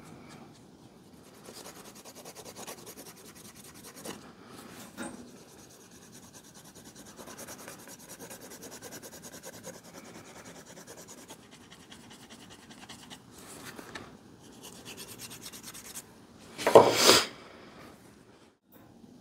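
Leather edge being burnished with a wooden burnisher: rapid back-and-forth rubbing in runs with short pauses. A brief, louder knock near the end.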